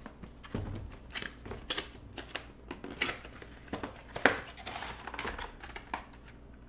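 Cardboard box packaging being opened and a clear plastic blister tray slid out and handled: scattered clicks, scrapes and crinkles, with one sharper snap about four seconds in followed by a short plastic rustle.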